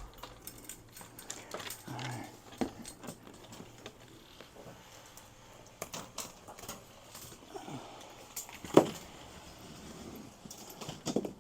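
Scattered clicks, taps and knocks of hands working on hardware while hanging LED shop lights, with one sharp knock about nine seconds in.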